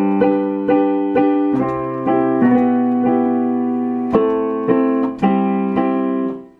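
Yamaha digital piano playing repeated block chords of a C-major progression, struck about twice a second and moving through several chord changes. The sound drops away sharply near the end.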